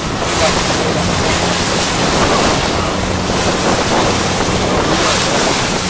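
Wind buffeting the microphone and choppy sea water rushing past a moving boat, in gusty swells. A steady low motor hum runs underneath.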